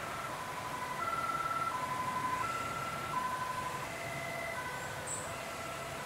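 Emergency vehicle's two-tone siren (German 'Martinshorn'), switching back and forth between a low and a high note about every three-quarters of a second, with a second siren at different pitches overlapping. It grows somewhat louder about a second in, then eases back.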